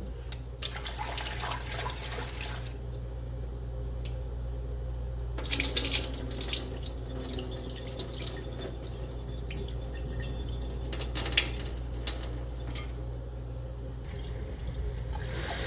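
Kitchen tap running and water sloshing as masoor dal (red lentils) is rinsed at the sink, with a few louder splashes along the way. A steady low hum sits underneath.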